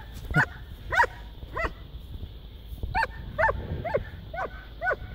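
A dog barking repeatedly in short, high yaps, about two a second, with a pause of about a second midway.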